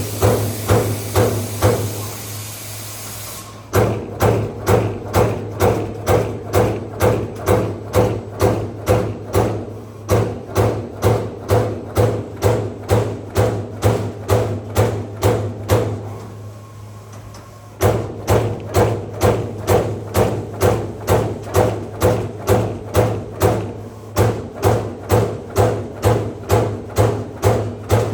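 Electric servo CNC turret punch machine punching sheet metal in rapid, even strokes, about three a second, over a steady low hum. The punching stops twice for about two seconds, about two seconds in and about sixteen seconds in, while the machine repositions.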